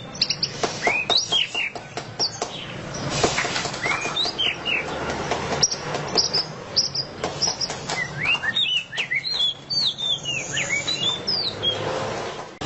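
White-rumped shama (murai batu) singing in its rapid 'ngeriwik' chatter: quick, sharply rising and falling whistled notes strung together with hard clicking notes.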